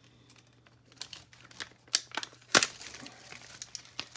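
Toy doll packaging being crinkled and torn open by hand: irregular crackles begin about a second in, with one sharp loud snap midway.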